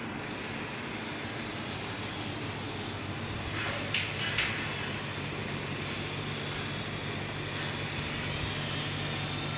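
Steady hum and hiss of a 1000 W robotic laser welding machine running, with a few sharp clicks about four seconds in. A higher hiss joins about halfway through as the robot's laser head welds along the edge of the plate.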